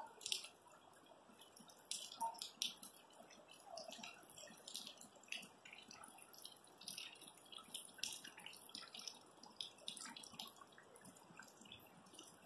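Faint, irregular water dripping, with scattered sharp clicks.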